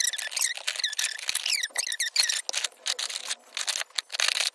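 Die-cast metal toy cars being set down and knocked together, a quick, uneven run of light clicks and clacks.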